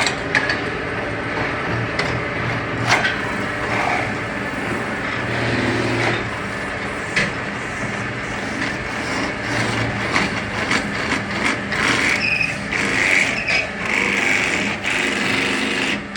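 Metalworking machinery in a bowl factory running steadily, with sharp metallic knocks and clicks scattered through it that come more often in the second half.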